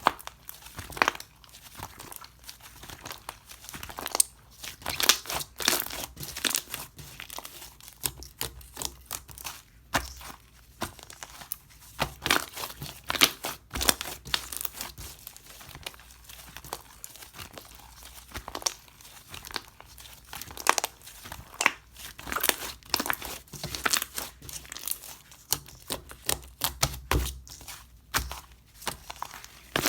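Berry granola slime being squished and pressed by hand, giving irregular crinkly crackles and sharp pops with short quieter stretches between them.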